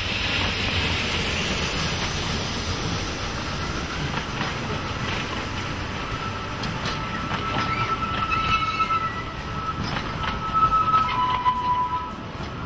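Narrow-gauge steam train passing close by: a hiss of steam as the locomotive goes past, then its wooden passenger coaches rolling by, with long high-pitched wheel squeal on the curve and sharp clicks of wheels over the rail joints in the second half.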